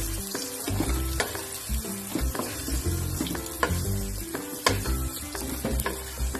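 Tofu pieces sizzling as they fry in hot cooking oil, with scattered sharp clicks of a utensil in the pan.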